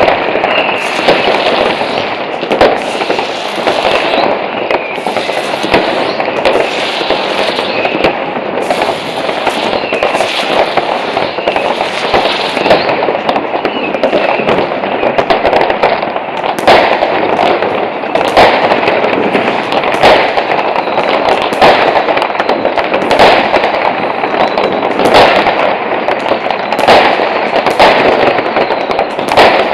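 Many fireworks and firecrackers going off at once all over a town: a continuous crackle of rockets and bangers with sharp bangs throughout, which come as separate loud bangs about once a second in the second half.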